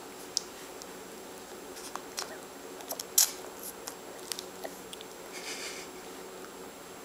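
Baby mouthing and sucking on a mesh feeder holding banana: scattered small wet clicks and smacks, with one sharper click about three seconds in.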